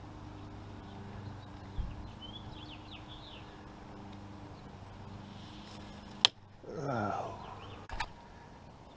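Birds chirping faintly over a steady low hum. About six seconds in there is a sharp click, then a falling, pitched call, and another click about a second later.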